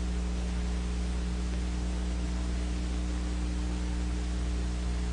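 Steady electrical mains hum with a few higher overtones over even hiss: the background noise of an old film soundtrack, with nothing else happening.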